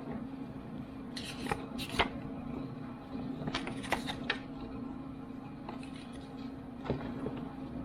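Handling of a power bank and its packaging during unboxing: scattered clicks and rustles in two clusters and a single click near the end, over a steady low hum.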